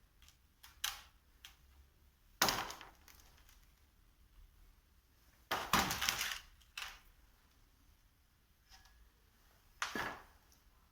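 Sharp knocks and clanks of hard parts or tools being handled, the loudest about two and a half seconds in, a quick run of them around six seconds, and one more near the end.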